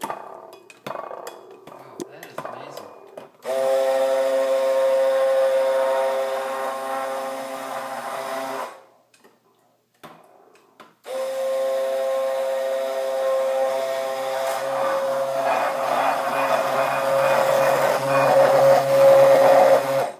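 Immersion (stick) blender running in a glass measuring cup, emulsifying egg and oil into mayonnaise. The motor whine starts a few seconds in, stops for about two seconds and starts again, turning rougher and more churning toward the end as the blade works the mixture. A few light knocks come before it starts.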